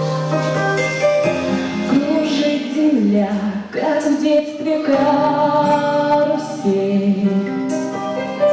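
Music: a song's backing track, with a melody moving over held chords.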